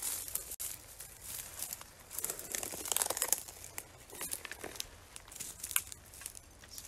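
Dry twigs and leaves crackling and rustling irregularly as someone pushes through thorny brush, busiest about halfway through, with a few sharp snaps.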